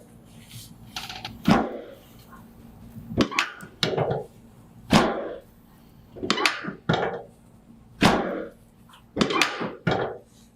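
Chiropractic drop table's drop section falling under a hand thrust: a series of about nine sharp thunks at irregular intervals of about a second, each fading quickly. These are drop-table adjustments to the sacroiliac joints and lower spine.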